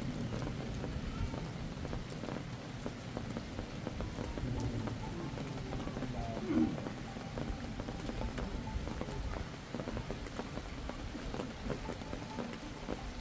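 Steady rain pattering on a crowd's umbrellas: a constant hiss dotted with fine drop ticks over a low rumble. There is one brief louder sound about six and a half seconds in.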